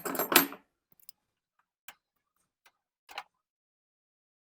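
A short clatter, then a few sparse light metal clicks and taps from hand tools and the loose 5/16 carburetor mounting bolts on a riding-mower engine as they are worked loose. The loudest click comes about three seconds in.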